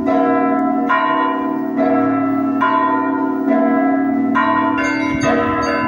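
Russian Orthodox monastery bells ringing together: a group of smaller bells struck in a repeating pattern about once a second over the steady hum of larger bells, the strikes coming quicker near the end.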